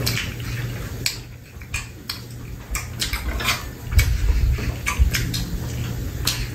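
Metal chopsticks clicking and tapping against plates and bowls as food is picked up: a dozen or so light, sharp clicks at uneven intervals, over a low steady hum.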